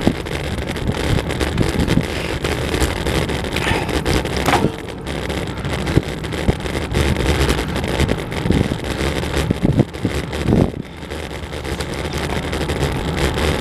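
Wind rushing over the microphone of a camera riding on a moving vehicle, with steady road rumble and a few short gusts or bumps; the rumble drops briefly twice.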